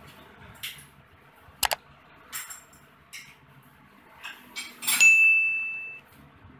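Scattered light knocks and clinks of hands and metal on the steel motor-and-generator rig, then one sharp metallic strike about five seconds in that rings on a single high note for about a second.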